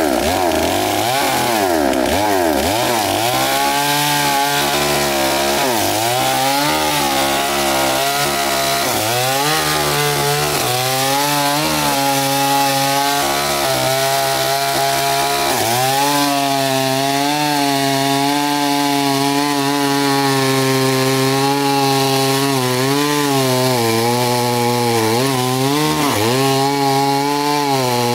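Two-stroke chainsaw cutting into a large tree trunk at high revs. The engine note sags again and again as the chain bites and loads up, then picks back up, and it wavers rapidly in the first few seconds.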